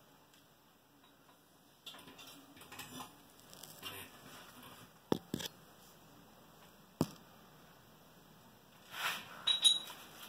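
Metal parts of a car's parking-brake assembly clicking and clinking as they are handled and fitted: a few sharp clicks about five and seven seconds in, then a cluster of clinks near the end, one with a brief metallic ring.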